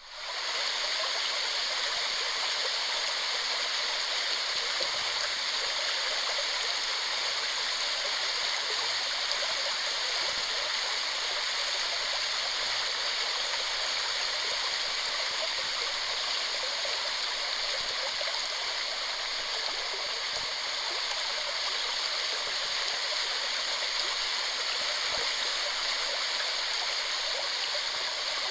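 Waterfall: water falling and rushing in a steady, dense roar that does not change, after a brief dip right at the start.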